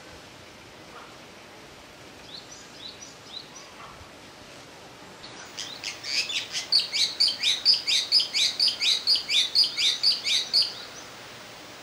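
A bird calling: a few faint chirps, then from about six seconds in a loud, rapid run of about twenty sharp, downward-sliding notes, some four a second, that stops about a second before the end.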